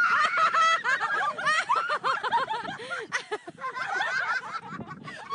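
A sudden high-pitched scream, then several voices laughing in rapid, high-pitched peals that keep on.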